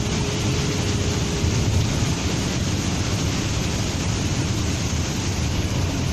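Steady rush of heavy rain and road noise heard from inside a moving vehicle's cabin. A faint steady hum fades out about a second and a half in.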